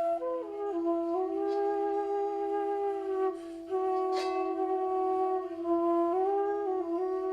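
Background music: a slow Irish lament on a flute-like wind instrument, its melody moving slowly above a steady held drone note.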